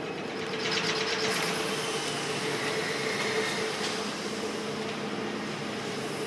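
Steady machine hum with a hiss of air that starts about a second in and fades over the next few seconds: the air-operated aluminium profile punch cycling.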